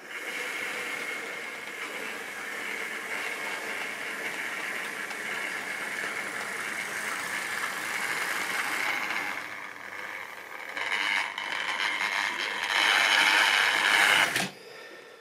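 Model railway train running on its track: the locomotive's small electric motor whines and the wheels rattle along the rails. It starts suddenly, is loudest as the locomotive comes close near the end, and cuts off sharply about a second before the end.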